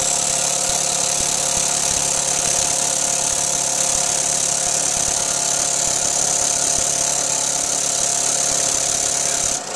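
Small student-built single-cylinder compressed-air engine with a flywheel, running at speed on shop air fed from a hose and blow gun: a loud steady air hiss over the engine's steady hum. It cuts off abruptly near the end when the air is shut off.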